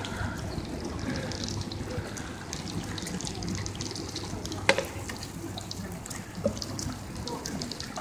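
Running footsteps splashing on a rain-soaked asphalt road, a steady wet patter with small irregular clicks and one sharp click a little past the middle.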